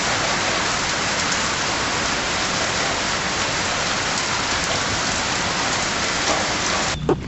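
Steady rain pouring down during a thunderstorm, an even hiss that cuts off suddenly near the end.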